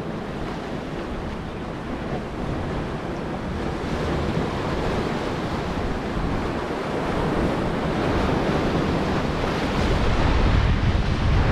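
Heavy sea surf breaking and washing against the shore, with strong wind buffeting the microphone. The roar builds slowly and swells near the end.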